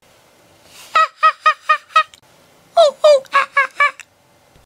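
A high-pitched, cartoonish voice cackling in two quick runs of short "ha"s, about five in each run, starting about a second in and again near three seconds in.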